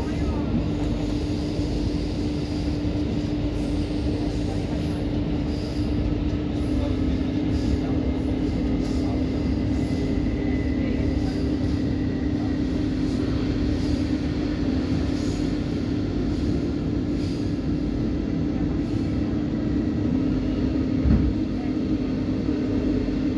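Passenger train running, heard from inside the carriage: a steady rumble of wheels on track under a constant hum. One brief knock about 21 seconds in.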